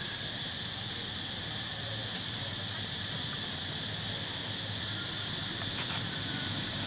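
Steady, high-pitched drone of insects singing without a break.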